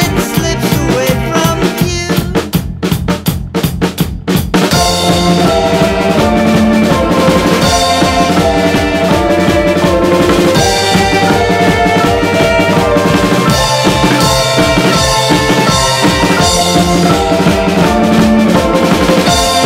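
Background music: a band track with drum kit and bass. Sparse drum hits for the first few seconds, then the full band comes back in with a steady beat about four and a half seconds in.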